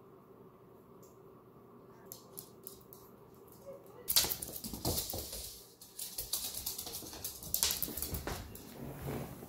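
Small dog's claws clicking and scuffing on a laminate floor: a few faint ticks at first, then from about four seconds in loud, rapid clicking as it scampers around.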